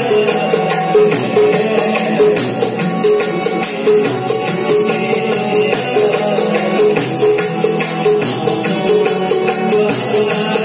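Ghazal music played live on harmonium and keyboard, the melody running over a quick, steady jingling percussion beat.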